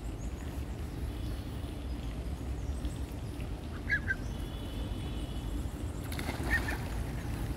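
Ducks giving a few short calls, once about four seconds in and again about six and a half seconds in, over a steady low background rumble. Around six seconds in there is a brief flurry of wing-flapping.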